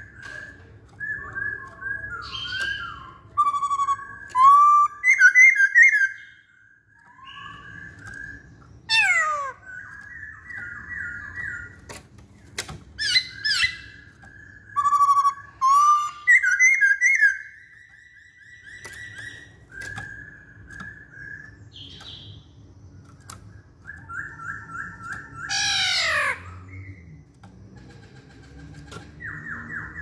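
Masked laughingthrush (poksay Hongkong) singing: a varied run of loud whistled phrases and strings of quick repeated notes, broken by several sharp calls that sweep steeply downward, with short pauses between bouts.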